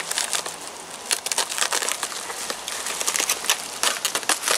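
White padded plastic mailer crinkling and crackling as it is handled and cut open, a dense, irregular run of small crackles and clicks.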